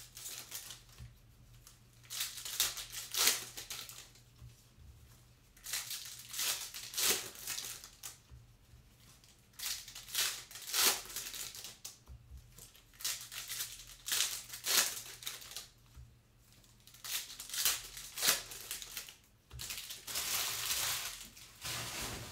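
Rustling and crinkling of an opened foil trading-card pack and the cards inside as they are pulled out and flipped through by hand, a string of short swishes every second or two.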